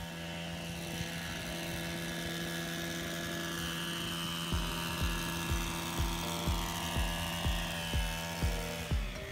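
Background music: sustained synth chords, joined about halfway through by a steady kick-drum beat at about two beats a second.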